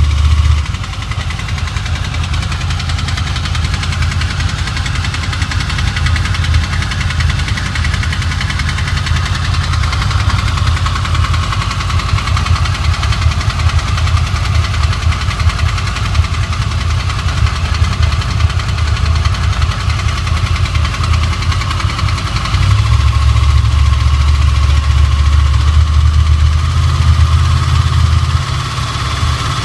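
Honda VFR800's V4 engine running at idle, a steady low rumble with a constant higher-pitched note on top; it grows louder for several seconds near the end. The owner reports a strange engine noise while it is below 65 °C.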